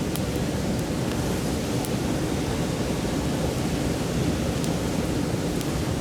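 Mountain stream flowing steadily, with a few faint, sharp crackles from a wood campfire.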